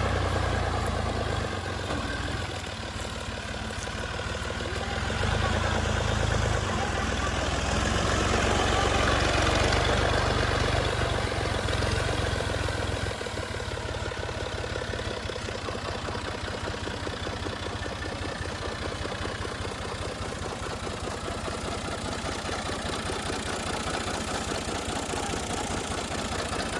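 Heavy farm diesel engine of a tractor or combine harvester running, louder for a few seconds about a quarter of the way in. It then settles into a steady idle-like run for the second half.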